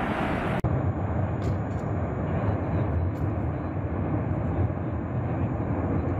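Cumbre Vieja volcano erupting: a steady, deep rumbling noise, heavy in the low end. It breaks off sharply for an instant about half a second in and carries straight on.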